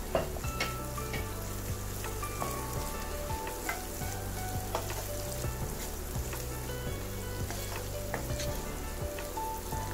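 Sliced onions sizzling in hot oil in a nonstick frying pan. A wooden spatula stirs them, with a few short clicks and scrapes against the pan.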